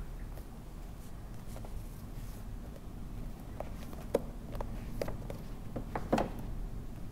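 Books and magazines being handled and set down on a wooden shelf: light rustling, then a series of small knocks, the loudest about halfway through and near the end, over a low steady room hum.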